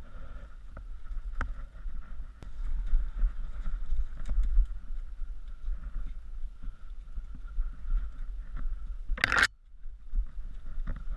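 Mountain bike rolling over a rough, leaf-covered dirt trail, heard from a helmet-mounted camera: steady rumble with wind buffeting and scattered clicks and rattles from the bike over roots and rocks. A brief loud burst about nine seconds in, after which it goes quieter for a moment.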